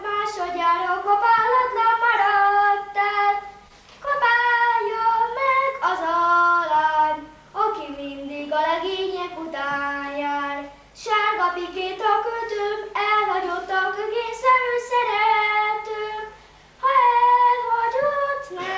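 A boy singing a Hungarian folk song solo, without accompaniment, in long held phrases broken by short pauses for breath.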